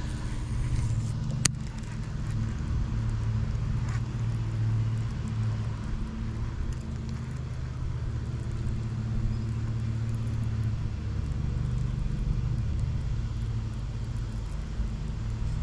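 Steady low mechanical hum from a motor, with one sharp click about a second and a half in.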